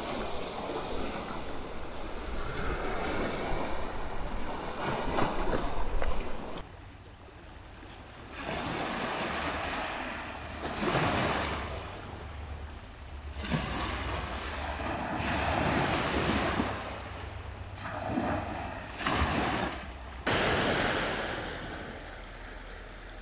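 Sea waves breaking and washing onto a beach, each surge swelling and fading over a few seconds, with a little wind.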